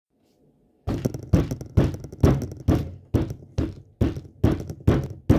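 A steady beat of sharp thuds, a little more than two a second, starting about a second in, each one dying away quickly.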